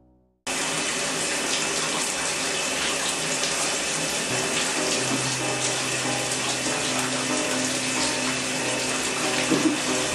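Shower spray running steadily, water falling on a person and the tiled stall. It starts abruptly about half a second in.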